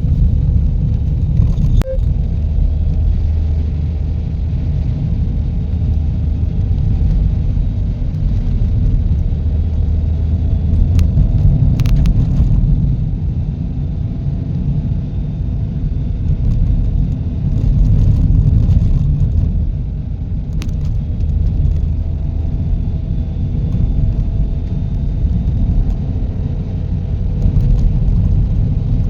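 Steady low rumble of a car on the move, engine and road noise, with a few brief clicks.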